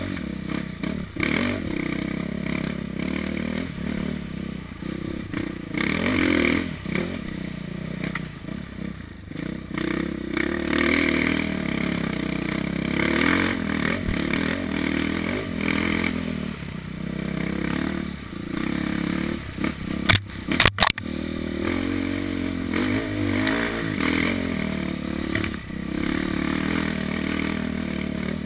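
Dirt bike engine revving up and down, the pitch rising and falling as the rider works the throttle. Clattering throughout, and a cluster of sharp knocks about two-thirds of the way through.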